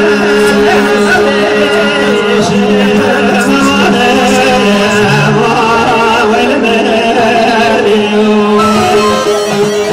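A man singing into a handheld microphone, amplified through a sound system, over a steady accompaniment drone that is held under the wavering melody.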